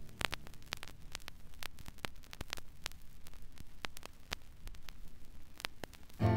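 Vinyl LP surface noise in the quiet groove between two tracks: a scatter of crackles and pops over a low hiss. Just before the end, the next song starts abruptly.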